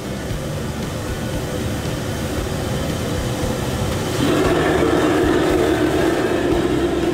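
Commercial gas wok burner running with a steady rush under a smoking wok, growing louder about four seconds in as the flame is turned up high; food sizzles in the wok.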